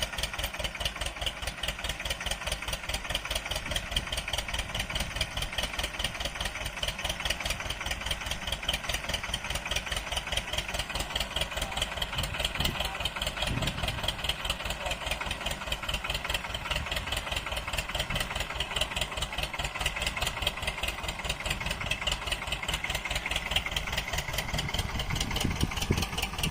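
An engine running steadily at idle, with a fast, even beat.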